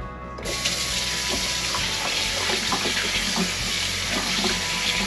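Kitchen faucet turned on suddenly about half a second in. It runs steadily into a stainless steel sink, splashing over a gutted fish being rinsed by hand.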